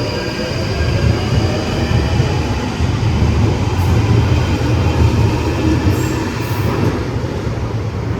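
London Underground 1995 Stock train running on the Northern line: a loud, steady rumble of wheels and running gear with a faint high whine, easing off after about six seconds.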